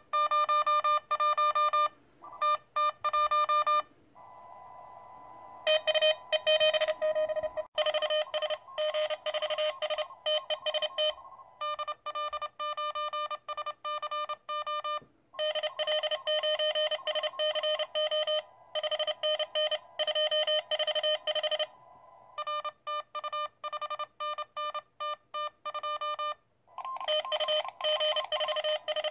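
Morse code (CW) tones from a QRP Labs QCX+ CW transceiver through a small attached loudspeaker, keyed with a paddle in quick runs of dits and dahs. In a few stretches receiver hiss and a fainter, higher steady tone come in between the keyed tones.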